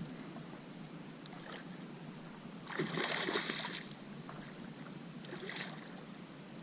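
A hooked redfish thrashing and splashing at the water's surface beside a kayak as it is hand-lined in. There is a splash of about a second, about three seconds in, and a shorter, fainter one later.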